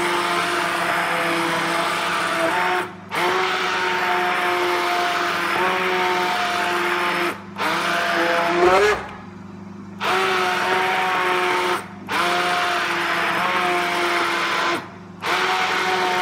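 Electric stick blender running in a plastic jug of tomato soup, its motor cutting out and starting again about five times as the button is let go and pressed again. Its pitch slides upward just before the longest break, about nine seconds in.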